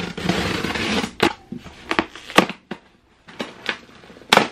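Scissor blade slitting the packing tape along a cardboard box's seam, a rasping scrape for about the first second. It is followed by a series of sharp rips and snaps as the tape and cardboard flaps are pulled apart, the loudest near the end.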